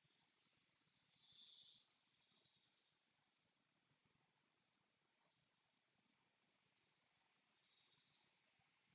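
Faint forest birdsong: short trills of very high, rapid chirps about three seconds in, around six seconds and again near eight seconds, with one brief whistled note about a second and a half in.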